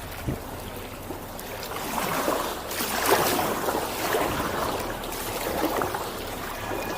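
Kayak paddle strokes in water, with splashing and water trickling off the blades, swelling with each stroke about once a second.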